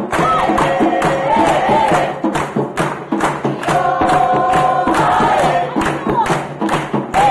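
A boys' choir singing a Caribbean song together, with hand percussion beating a steady rhythm under the voices. Around the middle the voices hold long notes.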